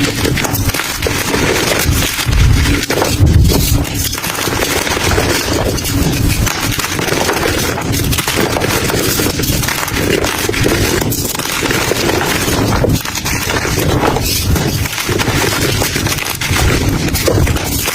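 Dry, powdery crumble material being crushed and crumbled in continuous close-up crunching and crackling, with a couple of heavier crunches about three seconds in.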